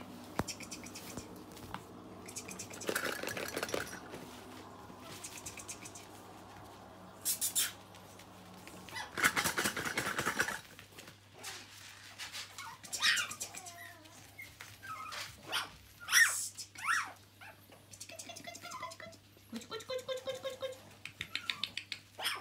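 Smooth Brussels Griffon puppies playing, giving short high-pitched yips and squeals, with a louder scuffling noise about nine seconds in.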